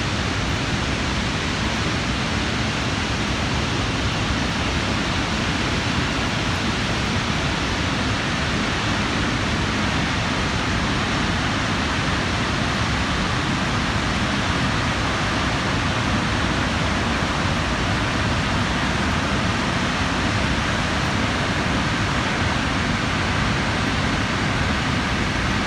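Snoqualmie Falls thundering in a heavy flow after a big rain: a loud, steady rush of falling water with no letup.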